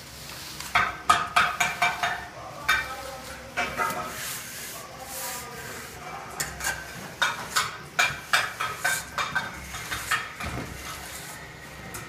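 Long metal straightedge worked in short sawing strokes across fresh plaster mortar on a wall, scraping and clacking with a slight metallic ring. The strokes come in two runs, a quick series in the first few seconds and another from about six seconds in to near the end.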